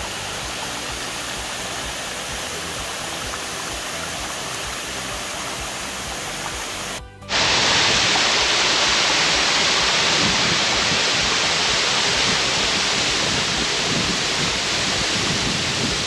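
Waterfall rushing: a steady wash of falling water that drops out briefly about seven seconds in and comes back louder and brighter.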